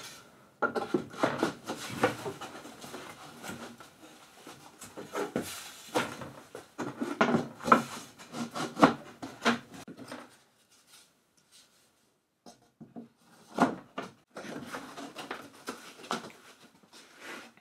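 Grooved wooden strips being slid and pushed onto the edges of a plywood drawer bottom: wood rubbing along wood with scattered wooden knocks. After a quiet spell of about three seconds past the middle comes one sharp knock, then more rubbing.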